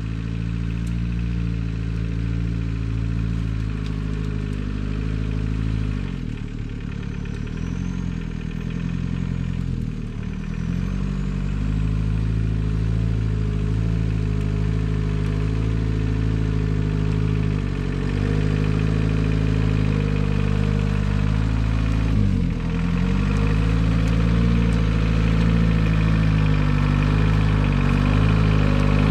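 1949 Willys CJ3A Jeep's four-cylinder flathead engine running steadily at low speed. Its pitch dips and recovers briefly a few times, about 6, 10 and 22 seconds in.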